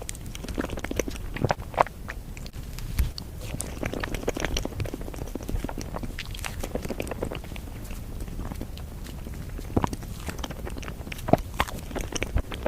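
Close-miked ASMR eating of a matcha dessert: steady chewing and biting with many short mouth clicks and smacks, a few louder ones near the end.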